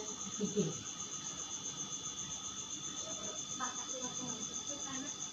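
A cricket chirping in a fast, steady run of even pulses.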